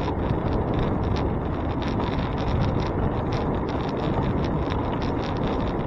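Wind rushing over a handlebar-mounted camera's microphone on a moving bicycle, steady throughout, with frequent small rattling clicks scattered through it.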